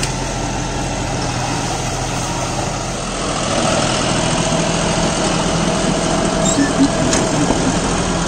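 John Deere 5405 CRDI tractor's 2.9-litre turbo-intercooled diesel engine running steadily, a little louder from about three and a half seconds in, with a couple of light clicks near the end.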